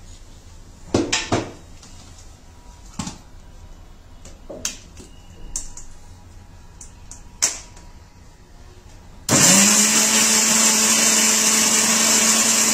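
A few scattered knocks and clicks, then about nine seconds in an electric mixer grinder starts up: its motor note rises quickly and then runs steady and loud as it grinds boiled black chickpeas, spices and water into a paste.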